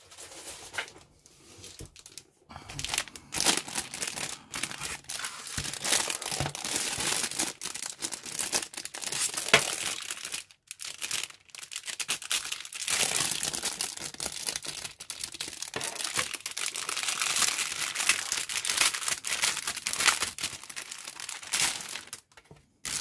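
Clear plastic bag crinkling and rustling as it is handled and pulled off a large flat plastic model kit part, with a short pause about halfway through.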